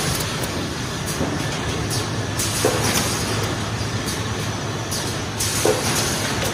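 Automatic book box assembly machine running: a steady machine hum with several short hisses and clicks as its pneumatic cylinders and grippers work, the strongest hisses about two and a half and five and a half seconds in.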